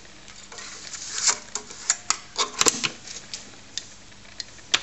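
Irregular plastic clicks and clacks as a 5.25-inch floppy disk is handled and pushed into the disk drive and the drive door is latched shut. The clicks come at uneven gaps, a few louder ones between about one and three seconds in.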